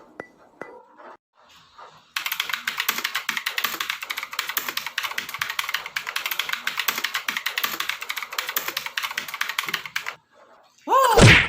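Fast, continuous typing on a computer keyboard, a dense run of key clicks lasting about eight seconds, after a few slow single keystrokes at the start. Near the end comes a brief loud sweep that rises and then falls in pitch.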